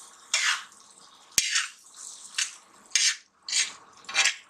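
Metal spoon stirring and scraping a poppy-seed and onion masala across an iron tawa in about six short strokes, one every half second or so, with a sharp click of the spoon against the pan about a second and a half in. The masala is being roasted slowly in oil on a low flame.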